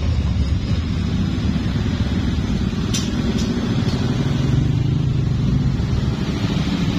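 Long train rolling past with a steady low rumble of wheels on the rails. Three short, sharp high-pitched sounds come about three to four seconds in.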